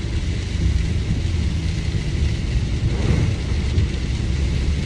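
Steady road noise inside a moving car driving in the rain: a low rumble with a constant hiss above it.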